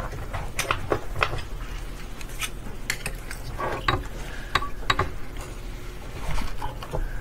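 Irregular sharp clicks and light clatter of glass microscope slides being handled and swapped on the microscope stage.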